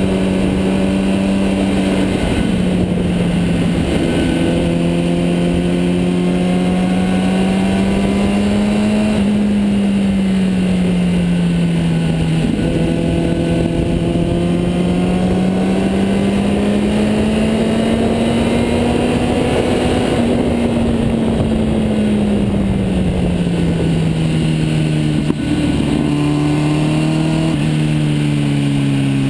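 Kawasaki Ninja motorcycle engine running under way with wind rushing past. The engine pitch rises and falls through the bends, with sudden steps at several gear changes.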